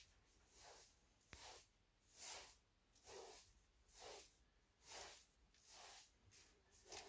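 A broom sweeping a carpet in short, even strokes: a faint swish about once a second, eight or so strokes, with one small click partway through.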